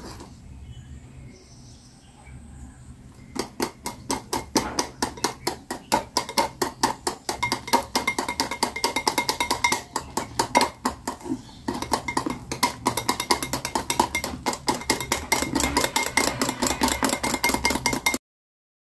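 Wire whisk beating thick whipped coffee in a glass bowl: fast, even clicking and scraping of the wires against the glass. It is quieter for the first few seconds, then runs steadily and cuts off abruptly near the end.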